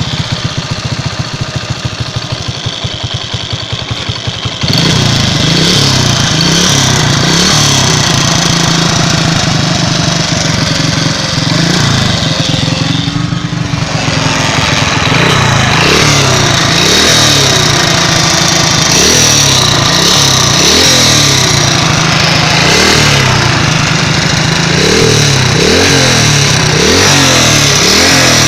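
Small engine running with a knock that the owner cannot place and asks for help with. About five seconds in it speeds up and gets louder, and in the second half it is revved up and down repeatedly.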